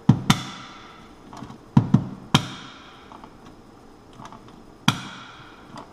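A series of sharp plastic clicks and knocks: a worn GFCI outlet snapping as it trips at the slightest tap and being pushed back in to reset. The tripping comes from its spring having gone too sensitive.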